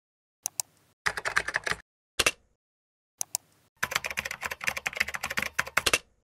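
Typing on a computer keyboard in short bursts of fast keystrokes, with a few single clicks between them and a longer run of typing from about four seconds in to near the end.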